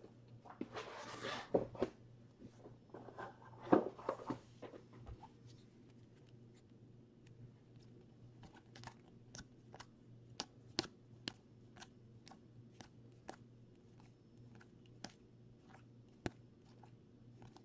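A card pack's wrapper crinkling and tearing in the first few seconds, then a run of soft clicks, a couple a second, as chrome Panini Prizm basketball cards are slid one by one off the stack in the hand.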